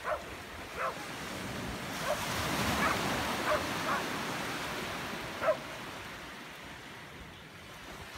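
Small waves washing up over wet sand, the surf swelling about two to three seconds in and slowly ebbing away. A few short faint calls sound over it.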